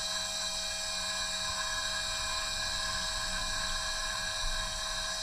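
Steady electrical whine made of several high held tones over a low hum, from the energised Sperry SR120 gyrocompass repeater and its transmission motor under bench test.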